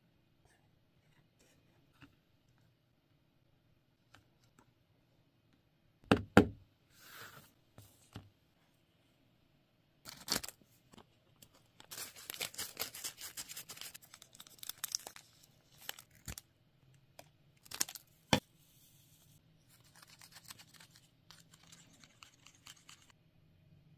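A small printed plastic packet from a DIY candy kit being crinkled and torn open, a dense crackling stretch in the middle with sharp clicks before and after. Near the end comes softer scraping, as a tiny plastic spoon stirs a sauce in a small plastic tray.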